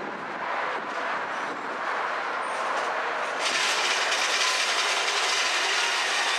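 Freight cars, a covered hopper among them, rolling slowly along the rails during switching: steady rumble and clatter of steel wheels on track. A steady hiss sets in sharply about three and a half seconds in.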